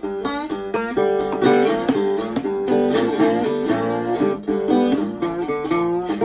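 Acoustic guitar played bottleneck-slide style in a Delta blues, the slide gliding up into notes over a steady fingerpicked bass.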